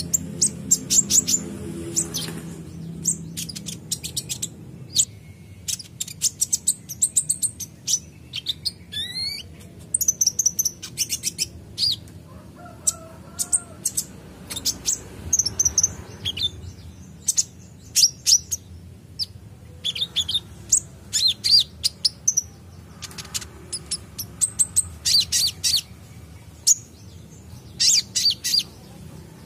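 Van Hasselt's sunbird (kolibri ninja) singing: rapid clusters of very high, thin chirps and trills, broken by short pauses, with one rising whistled note about nine seconds in.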